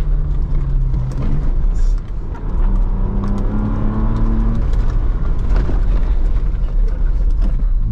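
Ford Bronco Raptor's 3.0-litre twin-turbo V6 running under load, heard from inside the cabin over a heavy low rumble from the rough dirt track. The engine note rises about two and a half seconds in and drops back after about four and a half seconds.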